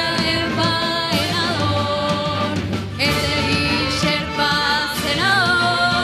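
Youth symphony orchestra playing live, strings and brass together, with a voice singing a melody with vibrato over the accompaniment.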